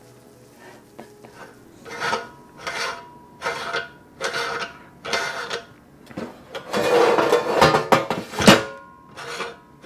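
Metal parts of an electric meat grinder's head being handled and taken apart: a series of short clinks and scrapes, then a longer, louder rattle near the end that ends in a sharp metal knock as the grinding plate comes out.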